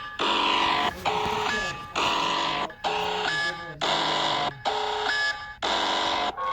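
Harsh electronic emergency-alert tone sounding in repeated pulses just under a second long, about seven in a row with short breaks between them.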